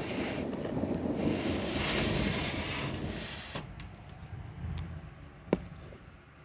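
Thunderstorm: a long low rumble of thunder with the hiss of rain and wind, which cuts off suddenly about three and a half seconds in. After that it is much quieter, with a few light clicks and one sharp click about five and a half seconds in.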